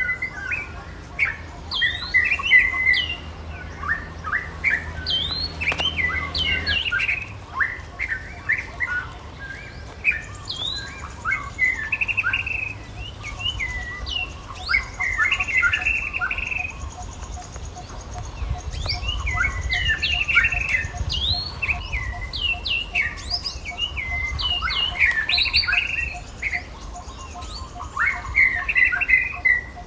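Many short, high chirping and squeaking calls, overlapping one another throughout. Under them a low hum stops about seven seconds in.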